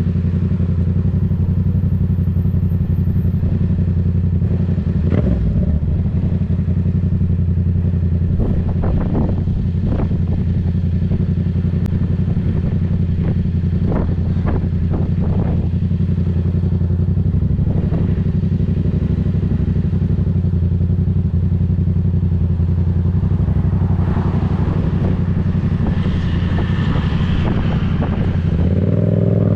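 Yamaha MT-07's 689 cc parallel-twin engine, breathing through a Black Widow aftermarket exhaust, running at a steady low speed, most likely idling, with a few short clicks and knocks over it. Near the end the revs rise as the bike pulls away.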